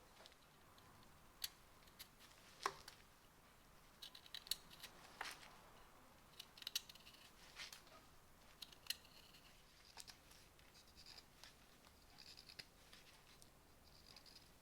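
Carving knife shaving ginkgo wood: faint, irregular short scraping cuts with sharp clicks as the blade bites and slices off chips.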